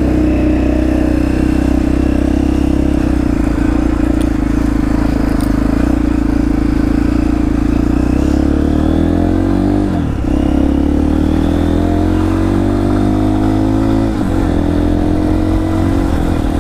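UM DSR Hypersport motorcycle's engine running steadily as the bike is ridden, its pitch rising gradually about halfway through and again near the end.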